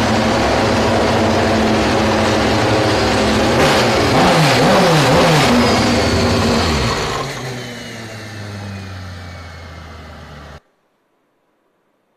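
Nissan Z GT500 race car's engine running at high revs, with several falling sweeps in pitch about four to five seconds in as the revs drop. It then fades and cuts off suddenly near the end.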